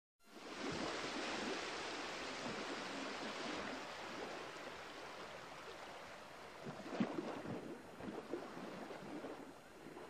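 Steady rushing water sound, fading in at the start and slowly easing off, with a few soft low thumps later on.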